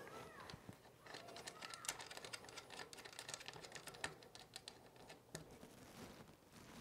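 Faint, rapid clicking of a small wrench being worked on the front axle nut as the front wheel is tightened into the fork.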